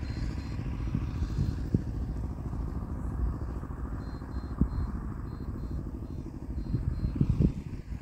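A steady low mechanical rumble with a fast, even pulsing, like a motor running, with three sharp knocks spread through it.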